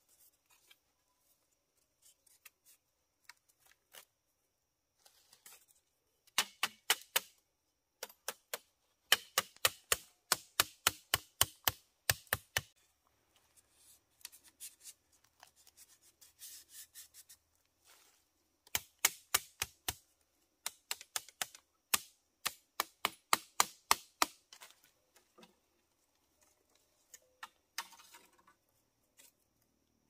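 Thin bamboo strips and sticks clicking and clacking against each other as they are woven into a bamboo lattice. The clicks come in quick runs of about three or four a second, with short pauses between the runs.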